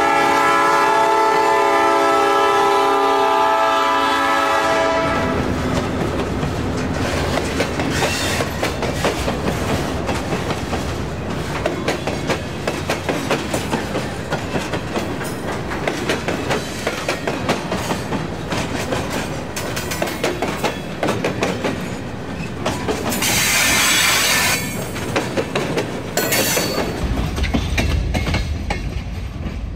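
A Nathan P5 five-chime air horn on an EMD GP9RM locomotive sounds a long chord that cuts off about five seconds in. The train then rolls by with a steady clickety-clack of wheels over rail joints, a brief hiss about two-thirds of the way through, and a low rumble near the end.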